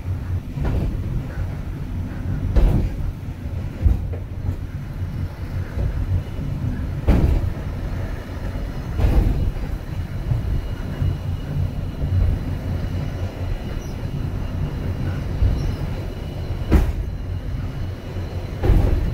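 Inside a funicular cable car running downhill: a steady low rumble of the car on its rails, with a sharp clack every few seconds at uneven intervals.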